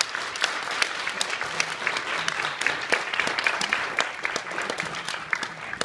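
Audience applauding: many hands clapping, some close by, dying down near the end.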